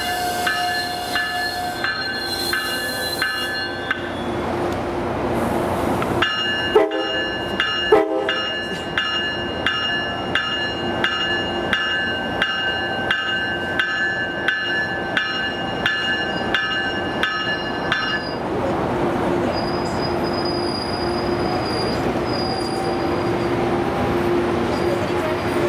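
A train at a station, with a bell clanging in regular strokes a little under twice a second. The strokes stop briefly at about 4 s, resume at about 6 s, and stop again at about 18 s. Two short, sharp, loud hits come at about 7 and 8 seconds in, over a steady train hum.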